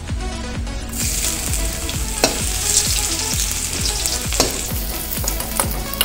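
Sliced ginger sizzling in hot oil in a wok, the hiss starting about a second in as it hits the oil, while a metal ladle stirs it. The ladle clinks sharply against the wok twice.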